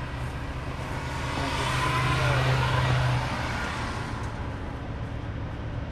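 A vehicle driving past: engine and road noise swell over about two seconds, then fade out, over a steady low hum.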